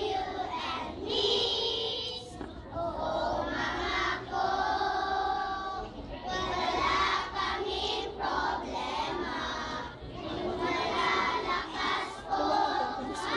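Crowd of young schoolchildren singing and shouting together in a loose, uneven chorus, in phrases with short breaks between them.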